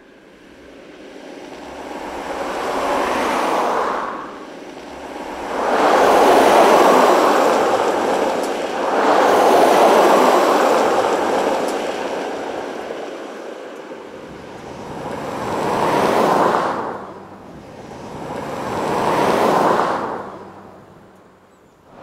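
Cars passing on a freeway one after another, each a swelling rush of engine and tyre noise that builds and fades away. About five passes, the loudest and longest near the middle.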